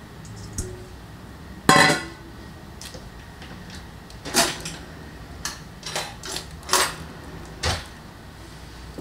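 Kitchen things being handled: a sharp knock about two seconds in, then a string of lighter clinks and knocks over the next few seconds, like dishes or utensils being set down.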